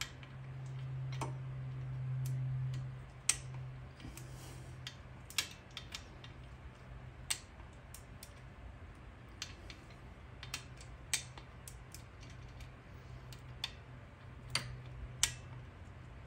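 A ratcheting socket wrench clicking in irregular single sharp clicks as the camshaft cap bolts on a Kawasaki KFX 400 cylinder head are tightened in a first light pass to about 20 inch-pounds, over a steady low hum that is louder in the first few seconds.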